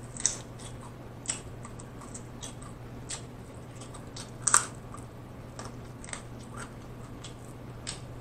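Close-up mouth sounds of a person biting and chewing fried chicken and picking the meat off the bone: scattered short, sharp smacks and clicks, the loudest about four and a half seconds in.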